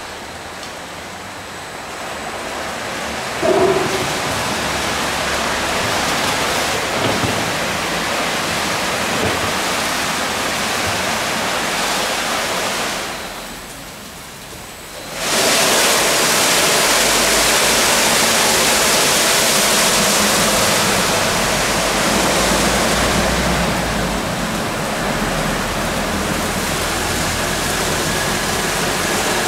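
Ceccato Hydrus Tech gantry car wash running its brush wash: spinning wash brushes and water make a steady rushing hiss, with a single knock a few seconds in. The noise drops away for a couple of seconds about halfway through, then comes back louder as the side brushes turn against the van.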